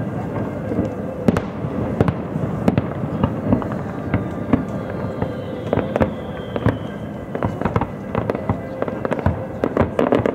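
Fireworks display: a dense, continuous run of bangs and crackling from bursting shells and ground fountains, with a faint whistle falling slowly in pitch midway.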